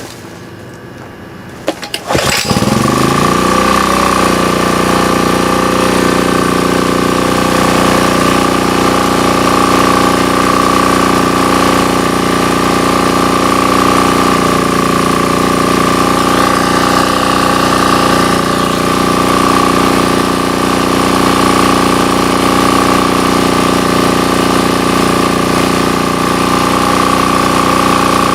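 Sportsman GEN2000 generator's small four-stroke engine, fitted with a replacement carburetor, catching about two seconds in. It revs up over a couple of seconds and settles into steady running with a constant high hum.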